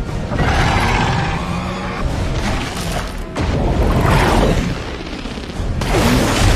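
Action-film soundtrack: music mixed with heavy booms and crashing impacts, the mix changing abruptly several times.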